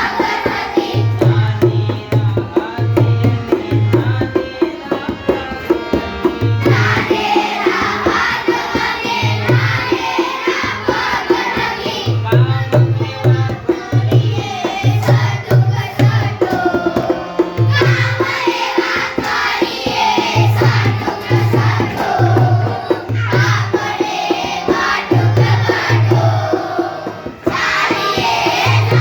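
Gujarati children's song: voices singing over a steady drum beat, with an instrumental passage between the sung lines.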